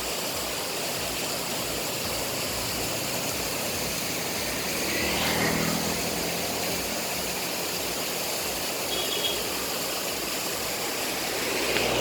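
Steady rush of river water flowing below a waterfall, with a brief louder swell carrying a low hum about halfway through.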